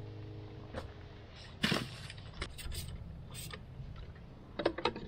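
A string of short, sharp knocks and clacks over a low, steady hum: one loud knock about a second and a half in, a few more a second later, and a quick cluster near the end.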